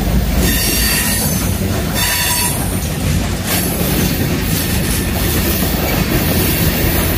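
A Canadian National freight train passing close by, its trailing locomotive going past and then tank cars rolling by, with a steady rumble of wheels on rail. Thin high wheel squeals come and go.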